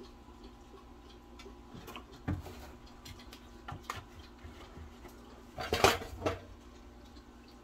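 Kitchenware being handled on a stovetop and counter: a few light clinks and knocks, then a louder clatter of several quick hits near the end.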